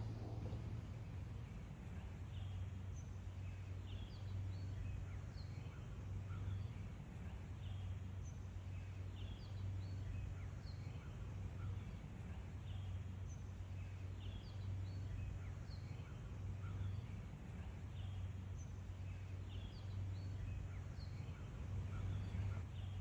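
Outdoor ambience: many short bird chirps scattered throughout, over a steady low hum.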